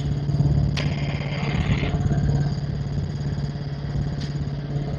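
Helicopter in flight: a steady engine and rotor drone with a fast, even beat from the blades. A short click sounds about a second in.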